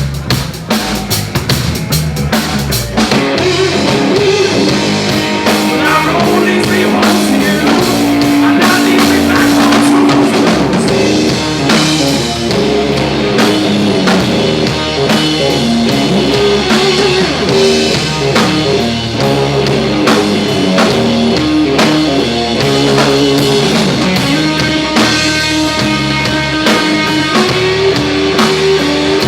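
Live blues rock band playing an instrumental passage: electric guitar lines with held, bending notes over a drum kit.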